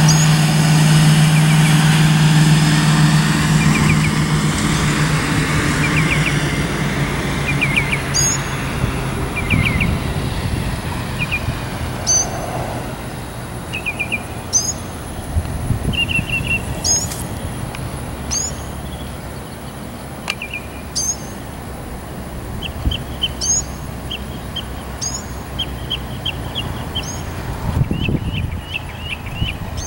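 Single-engine Cessna's piston engine and propeller running steadily as it lands, then fading away within the first ten seconds or so. After that a small bird chirps over and over in short calls.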